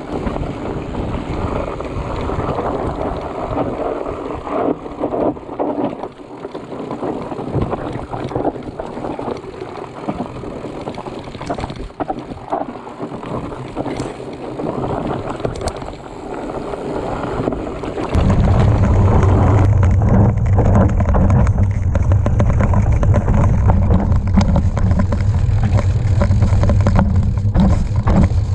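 Bicycle riding over a rough dirt trail: tyres crunching and the bike rattling over bumps, with wind on the microphone. About 18 seconds in, the sound switches abruptly to a louder, steady low rumble of the knobby fat tyre rolling over the dirt.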